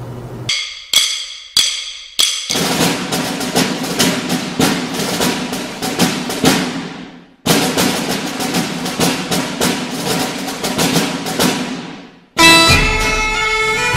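Closing theme music: a few sharp ringing hits, then fast drum and wood-block percussion in two long runs with a short break between them, ending in a loud sustained chord near the end.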